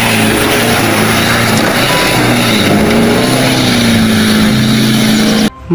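Fuel tanker truck's engine labouring as the truck churns through deep mud and water, under a loud, steady rush of noise. The engine note dips and then rises again around the middle, and the sound cuts off abruptly just before the end.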